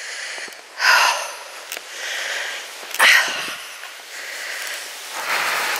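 A person breathing hard while walking uphill, with three loud breaths: about a second in, about three seconds in, and a longer one near the end.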